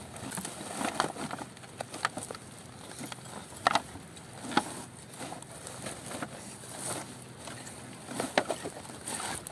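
Plastic litter and tangled fishing line crinkling and rustling as they are pushed into a woven plastic sack, with irregular crackles, a few sharper ones about four seconds in and near the end.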